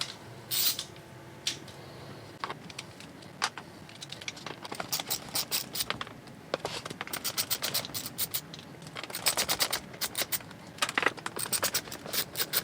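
A hand screwdriver working the screws of a drawer slide rail. A few separate knocks come first, then quick runs of sharp clicks.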